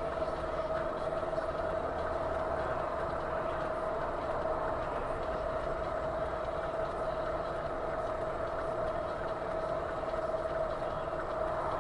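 A vehicle running steadily, an even rumble and noise with a constant whine over it, with no impact.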